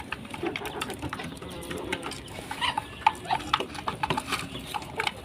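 Small flock of rooftop birds: pigeons cooing low underneath many short, quick peeps and chirps from young ducklings.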